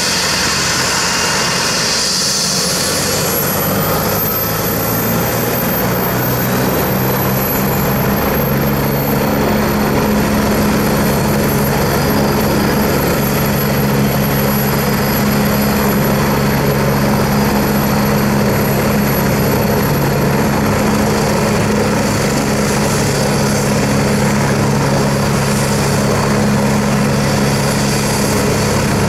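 Agusta A109S helicopter's twin turboshaft engines running on the ground and spooling up. A thin high turbine whine rises in pitch over the first few seconds and then holds steady, while a low steady hum strengthens until about ten seconds in and then holds.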